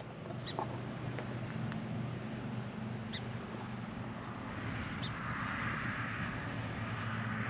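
Summer garden ambience: insects trilling steadily at a high pitch, over a low steady hum.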